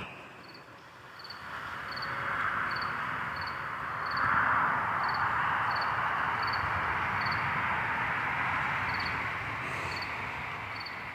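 A cricket chirping evenly, about one and a half chirps a second, under a louder rushing noise that builds over the first couple of seconds, is loudest near the middle and eases off near the end.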